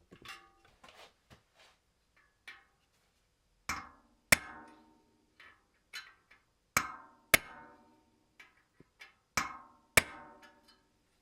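Sharp knocks, six in three pairs, each ringing briefly, with lighter clicks in between: tools striking parts of a bicycle wheel as it is built.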